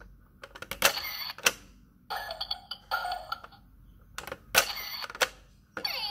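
Plastic toy camera's shutter button clicking as it is pressed, with the picture disc advancing, and short electronic tones from its little speaker. There are two runs of clicks about three and a half seconds apart, with the tones between them and a warbling tone near the end.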